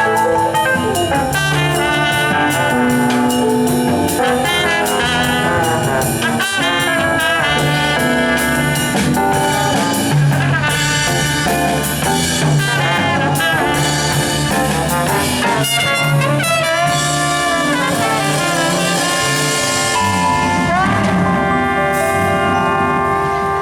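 A live band playing a jazz tune, led by brass instruments holding and moving through melodic lines.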